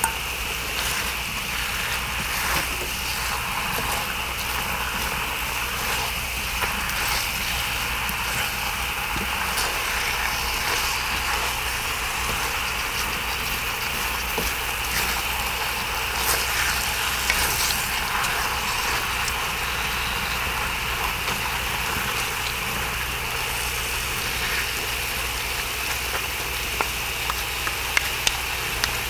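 Pork and kimchi stir-fry sizzling on a cast-iron cauldron lid as it is turned with wooden spatulas, over a steady low hum, with a few light spatula taps near the end.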